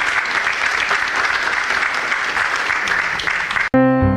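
Congregation applauding steadily, cut off abruptly near the end by sustained keyboard chords.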